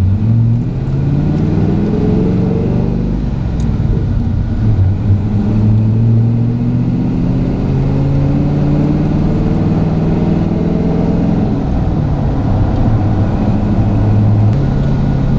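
Chevy K10 pickup's engine and drivetrain heard from inside the cab while driving. The engine note rises slowly under way, with a sudden step up in pitch at the start and another near the end.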